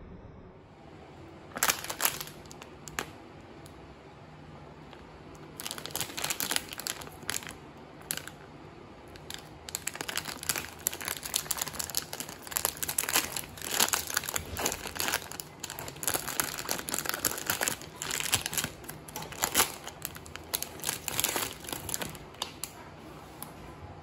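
Plastic wrapper of a frozen-yogurt ice bar crinkling as it is torn open and peeled back by hand. A couple of short crinkles come about two seconds in, then almost continuous crinkling from about six seconds until near the end.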